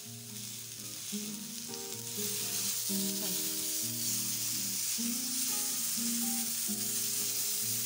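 Green chillies, onion and tomato slices sizzling in oil on a flat tawa as they caramelise; the sizzle grows louder about two seconds in. Soft background music plays underneath.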